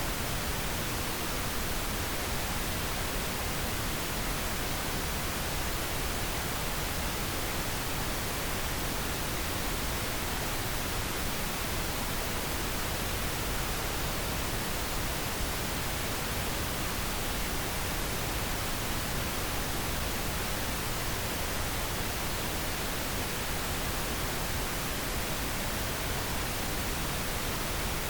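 Steady synthetic pink noise: an even, unchanging hiss spread across the whole range, with no events or changes.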